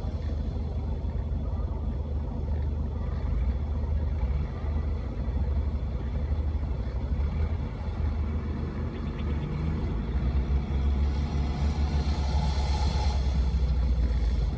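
A vehicle engine running, a steady low rumble, getting rougher and louder in the last few seconds.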